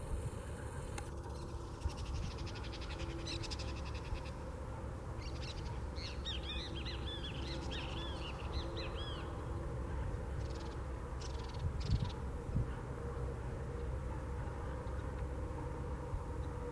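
Buff-necked ibises calling. First a rapid rattling series, then a burst of many overlapping harsh calls, then a few single calls near the middle, over a steady low rumble.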